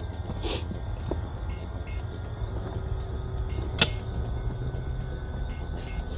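Steady insect chorus over a low rumble, broken by a couple of sharp knocks as a man gets down into a dirt pit with a short-handled pick. The loudest knock comes a little before four seconds in.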